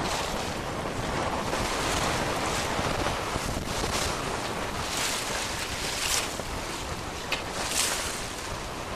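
Water rushing and splashing along the hull of a Maxi 95 sailboat under sail in a steady chop, with wind buffeting the microphone. A few brief, sharper splashes come through about halfway and again near the end.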